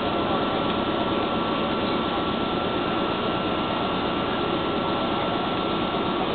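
Electric air compressor of the Wakayama Electric Railway 'Ichigo Densha' running steadily while the train stands at the platform, a constant mechanical drone with a thin steady whine that stops near the end. The line's supply has been raised to 1500 V, and the compressor now runs faster on it.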